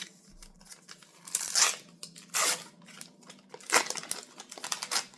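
A Topps football card pack's wrapper being torn open and crinkled, in several short rips and rustles, the loudest about two and a half seconds in.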